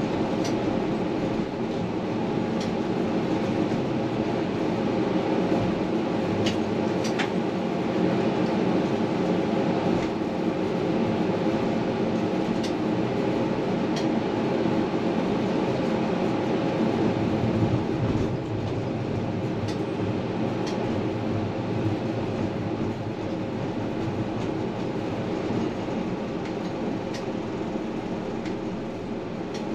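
Tram running on its rails, heard from inside behind the front window: a steady rolling rumble with a constant hum and a scattering of short, light clicks.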